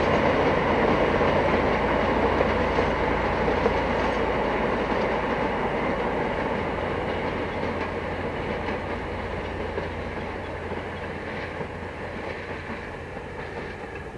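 A narrow-gauge freight train hauled by an Alsthom diesel locomotive, A-9207, rolls past with its wagons' wheels running on the rails. The sound fades steadily as the train draws away.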